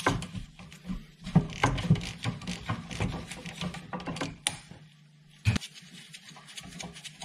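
Ratchet and socket winding out a rear brake caliper carrier bolt: a run of irregular metal clicks and clinks. One sharp knock comes about five and a half seconds in.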